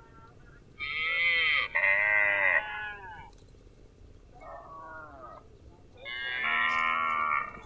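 Farm animal calling with four high-pitched, bleating calls: two close together near the start, a softer one in the middle, and a longer one near the end.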